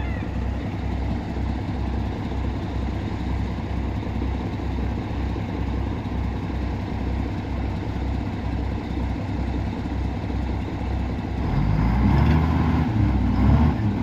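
Komatsu WA470 wheel loader's six-cylinder diesel engine idling with a steady low throb. About eleven seconds in it revs up and runs louder as the hydraulic log grapple arms are raised.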